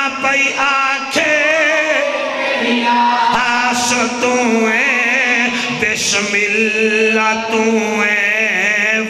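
A man chant-singing a Punjabi devotional qaseeda, a lori, into a microphone, in long wavering melismatic phrases. A steady low tone holds under the voice.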